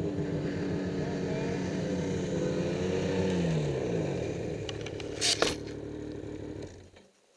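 Two-stroke Ski-Doo snowmobile engines running at low speed, one dropping in pitch about three seconds in. A few sharp knocks about five seconds in as a gloved hand handles the helmet camera, then the sound cuts off just before the end.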